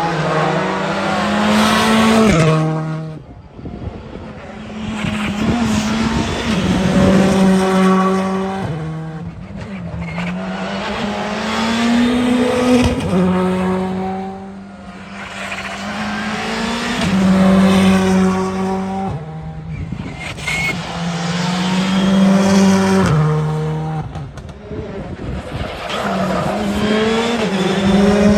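Rally cars on a special stage at full throttle, engines revving hard and dropping in pitch at each gear change. Loud passes build and fade about every five seconds.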